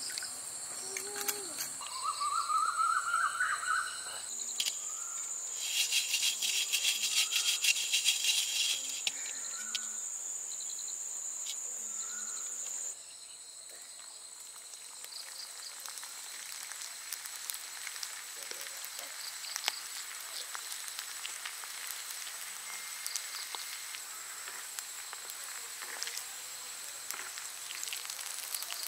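Crickets and other insects chirping steadily, loudest about six to nine seconds in. About halfway through this gives way to the dense crackling sizzle of hot oil, as balls of batter deep-fry in an iron pan over a wood fire.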